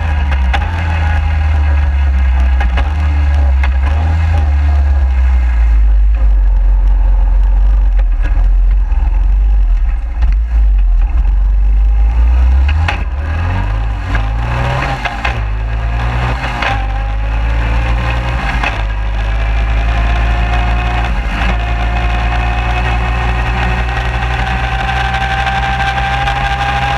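Suzuki 250 QuadSport ATV riding over grass, picked up at the front suspension: its single-cylinder engine running under a heavy low rumble of wind and vibration, with rattling. The engine pitch climbs in the middle, where several sharp knocks come from bumps.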